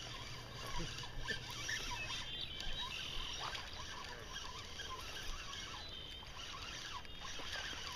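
Fishing reel being cranked, reeling in a hooked largemouth bass.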